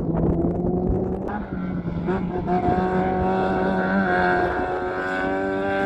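Rally car engine running at high revs as the car speeds away on a gravel stage, with loose stones and gravel crackling in the first second or so. The engine note dips briefly about a second and a half in, then holds high and steady.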